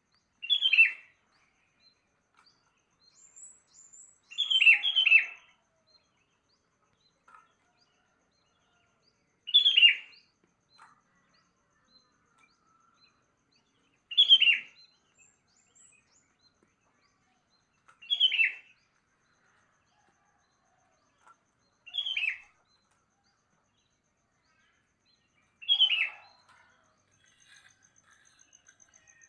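Sooty-headed bulbul (kutilang) singing short, falling phrases, one about every four seconds, seven in all, the second a quick double.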